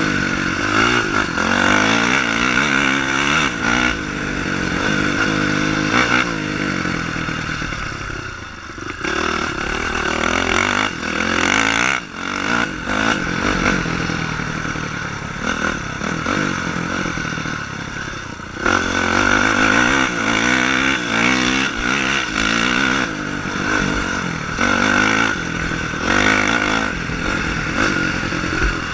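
Honda CRF450 dirt bike's single-cylinder four-stroke engine revving hard up and down through the gears at race pace, recorded onboard. The throttle eases off briefly several times, about eight, twelve and eighteen seconds in, before the engine picks up again with rising revs.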